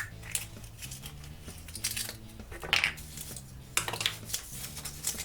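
Crinkling and clicking as a foil-wrapped chocolate surprise egg is unwrapped and opened by hand: a series of short, irregular crackles and snaps.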